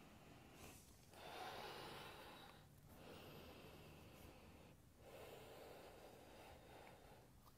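Faint, slow breathing: about three long breaths of roughly two seconds each.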